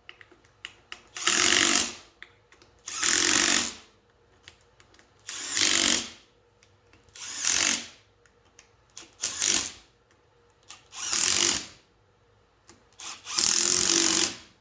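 Cordless impact driver running T40 Torx bolts down into a transfer case, hammering in seven short bursts of about a second each, one bolt after another roughly every two seconds.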